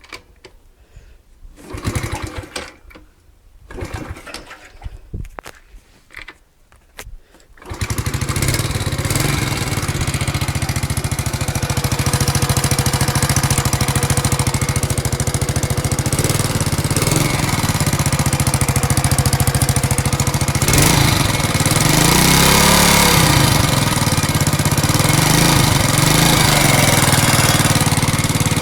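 Alpha moped's single-cylinder engine turned over in a few short bursts, then catching about eight seconds in and running steadily, with a brief rev a little after twenty seconds. It carries a knock whose cause the owner cannot find: the piston kit is new, the valves don't leak, the magneto rotor is tight and the clutch is fine.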